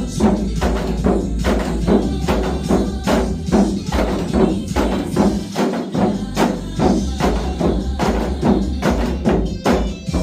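Korean janggu drums beaten in a steady basic rhythm, about three to four strikes a second, over a disco-style backing track with a strong bass. The drumming stops near the end.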